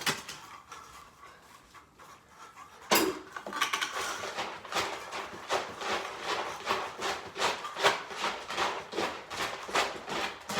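Short clinks and knocks of a utensil against dishes, starting with a sharp knock about three seconds in and then going on at about two a second, as cat food is dished out.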